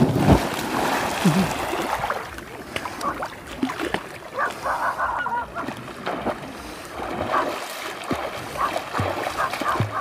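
A swimmer plunging into a reservoir with a big splash right at the camera at water level, then the water sloshing and splashing as he swims toward it. A few short high-pitched calls sound in the background near the middle.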